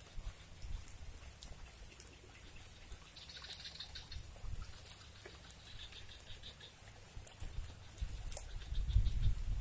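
Light rain pattering and water trickling, with scattered small drips and a low rumble on the microphone that grows louder near the end.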